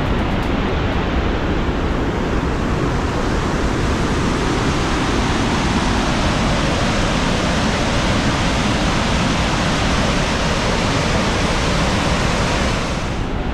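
Steady roar of river water pouring over the Lechfall, a weir-waterfall on the Lech. Near the end the hiss thins and drops slightly in level.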